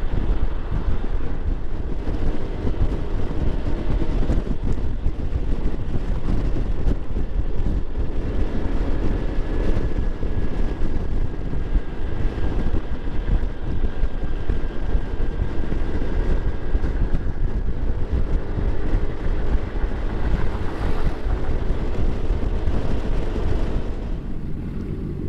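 Yamaha XMAX scooter running steadily at cruising speed, its engine drone mixed with wind rush on the rider's microphone.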